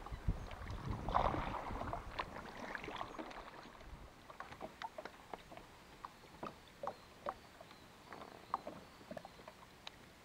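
Water and hull sounds of a fishing kayak: small splashes, knocks and scrapes, busiest in the first two seconds, then scattered light ticks and drips that thin out.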